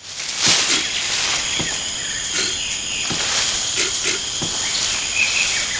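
Insect chorus of steady high trills over a hiss, with a few short knocks scattered through and a brief chirping near the end.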